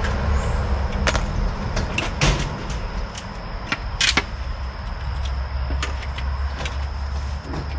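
End-cutting nippers gripping and rolling old finish nails out through the back of a length of door trim, with several sharp clicks and snaps, the loudest about four seconds in, over a steady low rumble.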